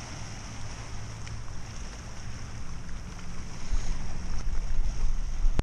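Wind buffeting the microphone in uneven gusts, heaviest in the last couple of seconds, over small waves lapping on a stony shore.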